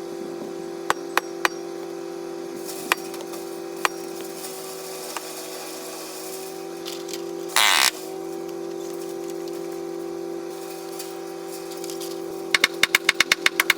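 Bobcat S100 skid steer engine running steadily, with a few sharp metallic clicks and knocks in the first few seconds. There is a brief hiss just over halfway through and a quick run of clicks near the end.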